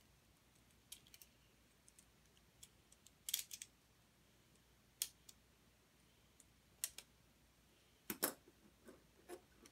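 LEGO plastic pieces clicking and snapping as they are handled and fitted together: a handful of scattered sharp clicks, the loudest a short cluster about three seconds in and another about eight seconds in.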